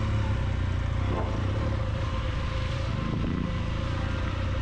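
Adventure motorcycle engine running at low trail speed. The engine note rises briefly about three seconds in.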